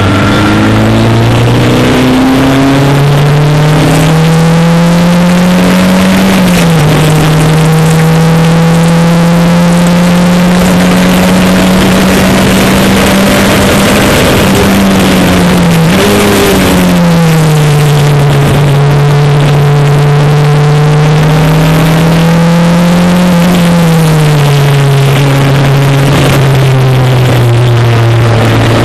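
Single-seater racing car's engine heard onboard at speed, its note climbing and holding through the gears and dropping sharply at gear changes, around 6, 15 and 24 seconds in, over steady wind and road noise.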